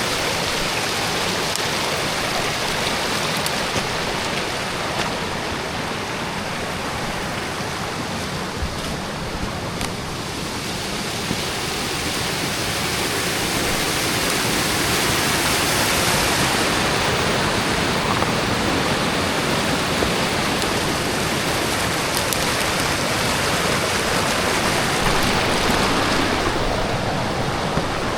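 Rain-swollen creek running fast over a rock bed: a steady rush of water whose tone shifts a little as it goes.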